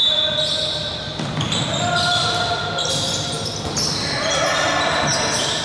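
A referee's whistle sounds at the start of a dodgeball opening rush. Then many short sneaker squeaks on the wooden court floor follow, with players shouting, in a large sports hall.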